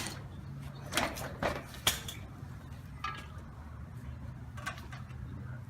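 A few sharp metal clinks and knocks, with tools or jack equipment being handled, over a low steady hum.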